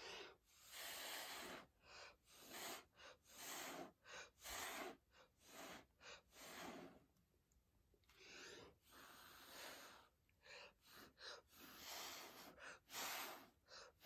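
Faint, repeated short puffs of blown air, uneven in length and spacing, pushing wet acrylic pouring paint down the canvas.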